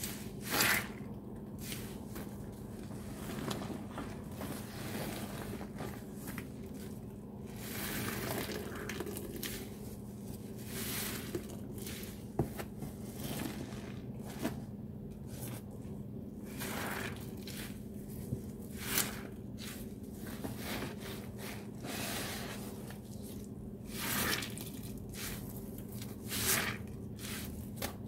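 Wet squishing and squelching of sponges loaded with thick Ajax cleaning paste and suds, squeezed by gloved hands in irregular strokes, over a steady low hum.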